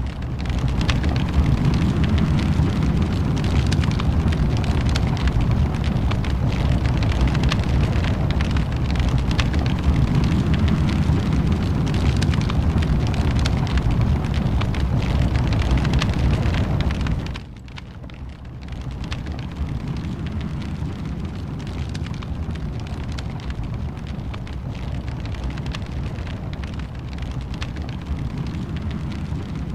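Fireplace fire crackling and popping over a steady low rumble. About 17 seconds in the sound suddenly drops, then carries on a little quieter.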